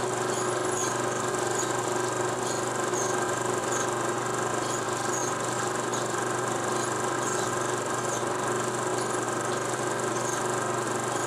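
A 16 mm film projector running: a steady mechanical whir and hum, with faint irregular high ticks.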